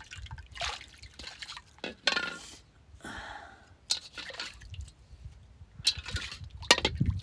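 Short, irregular splashy, drip-like sounds and small knocks, over a low rumble of wind on the microphone.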